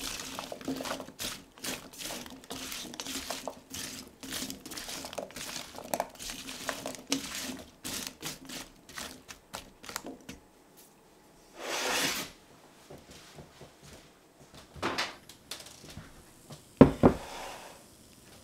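A metal utensil tosses raw cubes of celeriac, swede and carrot in a pan: rapid clacking and scraping of hard vegetable pieces against the pan for about ten seconds. Then a short rustle, a few scattered knocks, and a single heavy thunk near the end, the loudest sound.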